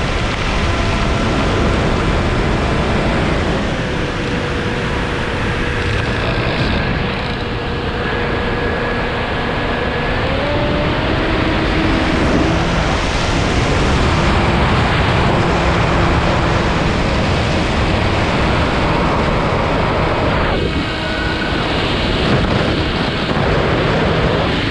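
Air rushing past an RC model airplane's onboard camera in flight, with the model's motor droning underneath and shifting pitch a few times as the throttle changes.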